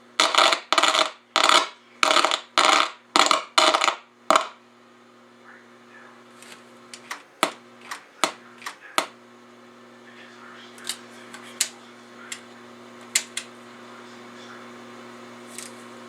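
A quick run of about seven short scraping rattles, then scattered sharp clicks and ticks, over a steady electrical hum.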